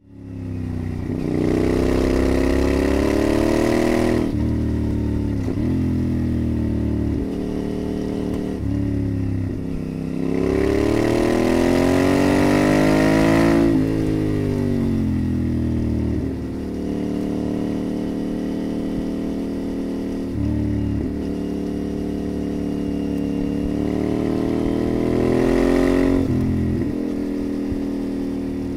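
1996 Yamaha TRX850's 270-degree parallel-twin engine pulling through the gears under way: the pitch climbs under throttle and drops sharply at each gear change, about ten times, with the longest climb about halfway through.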